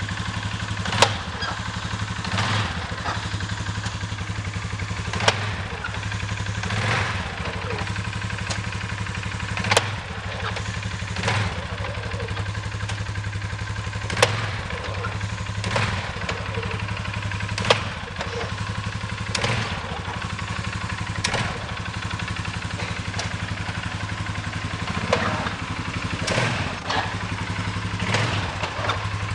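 2017 Polaris Sportsman 570 SP ATV engine running steadily, with sharp clacks from the clutch and transmission area every second or two. This is the clutch/transmission noise the owner hears when taking off.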